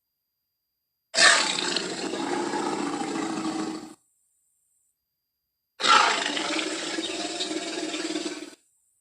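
Tyrannosaurus rex roar sound effect, played twice: each roar starts abruptly and loudly, holds for about three seconds, then tails off, with silence between the two.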